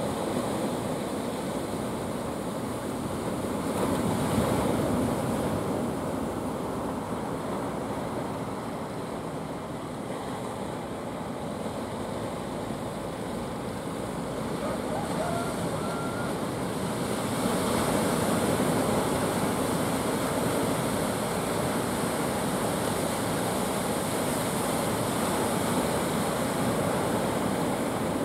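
Surf breaking and washing ashore: a steady rush of waves, surging louder about four seconds in and again a little past the middle, with wind buffeting the microphone.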